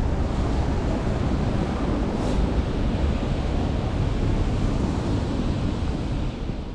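Steady rushing noise of wind buffeting the microphone, heaviest in the low end, fading out near the end.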